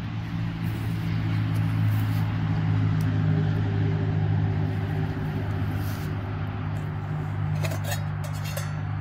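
Steady low machine hum with several even tones, like an engine running. Near the end, light metallic clinks as a stainless-steel cook pot and its lid are handled.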